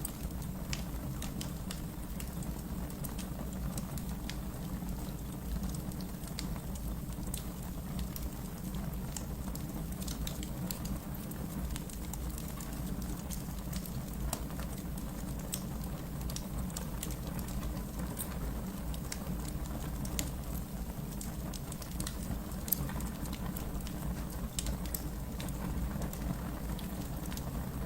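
Wood fire burning in a fireplace: a steady low rumble of flames with many scattered sharp crackles and small pops from the burning logs.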